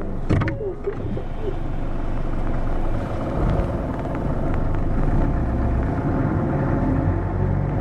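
Hino SDG-HX9JLCE small diesel route bus running, a steady engine and road rumble. The low engine note swells about three and a half seconds in and again near the end as the bus pulls.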